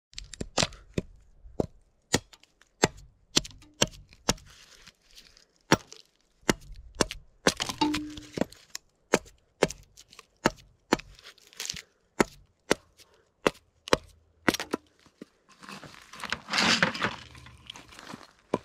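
A heavy machete chopping into an upright piece of wood on a stump chopping block: a long run of sharp, separate strikes, about two to three a second. Near the end comes a longer, louder stretch of splitting and tearing wood.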